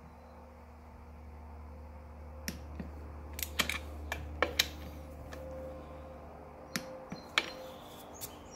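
Torque wrench and socket tightening the cylinder head nuts: a scattering of short, sharp metallic clicks, several close together around the middle and a few more near the end, over a low steady hum that fades out about seven seconds in.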